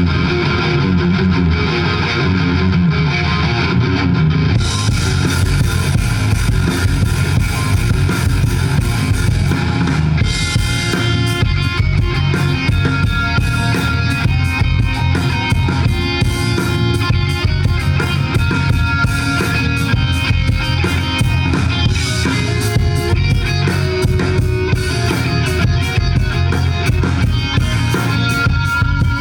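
Live rock band playing an instrumental passage, guitar with drums. The sound fills out about four seconds in and again about ten seconds in, where a steady drum beat drives it.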